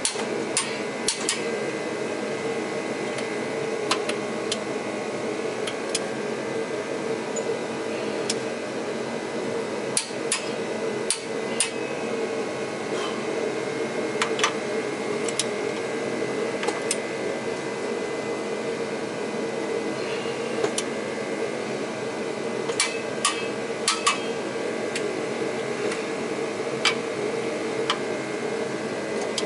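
Sharp metallic clicks of a click-type torque wrench on the flywheel bolts, coming irregularly, some singly and some in quick runs of two or three, as the bolts are brought up to torque. A steady hum runs underneath.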